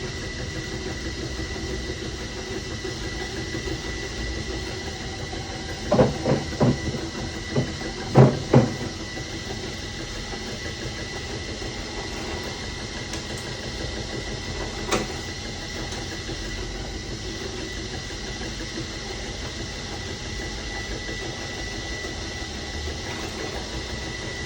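Bench drill press running with a steady hum and a constant high whine. A cluster of loud knocks about six to nine seconds in, and one more knock around fifteen seconds.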